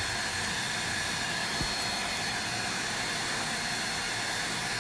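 Heat gun running steadily: its fan blowing air as an even hiss, with a faint high whine.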